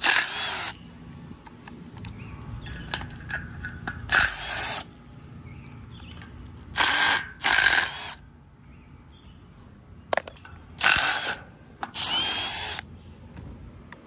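Cordless Milwaukee drill-driver spinning in six short bursts, each under a second, as it backs out the screws holding a condenser fan motor to its wire fan guard.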